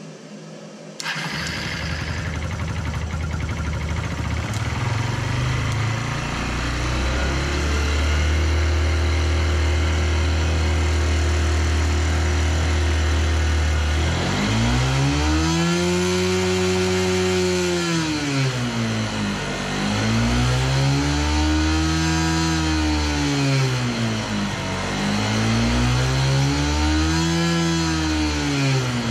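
Air-cooled single-cylinder motorcycle engine starts about a second in and idles, then from about halfway is revved up and back down three times, each rev a smooth rise and fall in pitch. It is revved to check the charging voltage, and with its new regulator rectifier it charges at about 14 volts.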